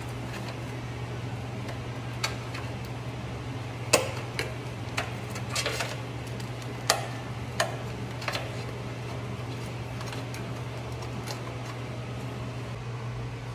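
Tin snips cutting sheet steel from a spare rocker panel: irregular sharp metallic snips and clinks, clustered in the first eight seconds, over a steady low hum.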